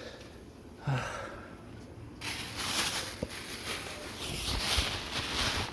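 Mop rubbed back and forth over a wet floor to dry up drips, a swishing, scrubbing noise that starts about two seconds in and swells and fades in strokes. A brief grunt-like vocal sound about a second in.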